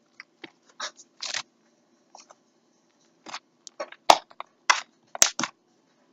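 Slime being squished and worked by hand, with short crackly crunches scattered through and two sharp clicks about four and five seconds in.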